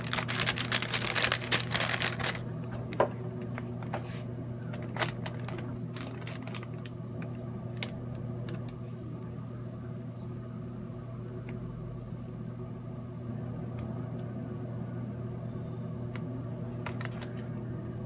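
Parchment paper crinkling as it is folded and handled for about two seconds, then a few sharp small clicks and taps as it is pressed in a hair straightener, over a steady low hum.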